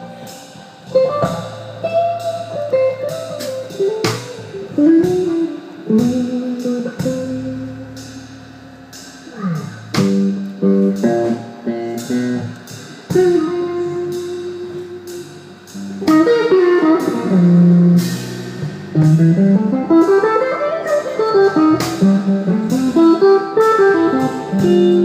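Electric guitar playing a blues lead line of single-note phrases, slides and quick runs up and down the neck, over a low bass part. It thins to a few ringing notes about a third of the way in, then picks up into longer climbing and falling runs.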